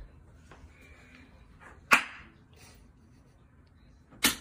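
An open hand slapping a bare belly twice, two sharp smacks about two seconds apart.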